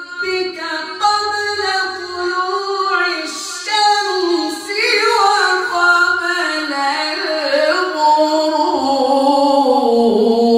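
A man reciting the Quran in slow, melodic tajweed: one long drawn-out phrase of held, ornamented notes that slide between pitches and settle lower toward the end.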